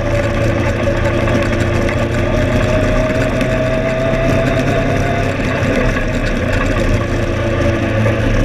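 Legend car's Yamaha motorcycle engine heard from inside the cockpit, running steadily on track, its pitch rising a little a few seconds in and then holding.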